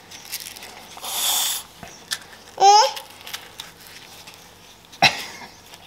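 A toddler's short babbled vocal sound, rising in pitch, about two and a half seconds in, with a brief hiss about a second in and a sharp click near the end as shoes are put on her feet.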